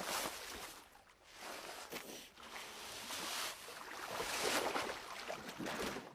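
Water splashing and sloshing in surges that rise and fall, loudest about four to five seconds in.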